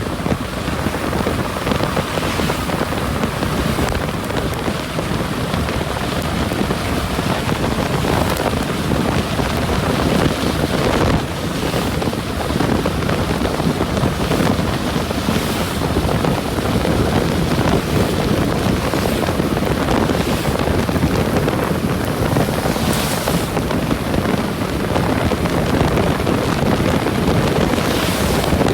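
Strong wind buffeting the microphone: a constant rushing noise with gusts surging every few seconds.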